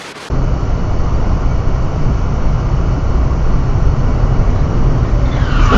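A brief burst of TV static hiss, then steady road and wind noise inside a car's cabin travelling at speed, growing slightly louder.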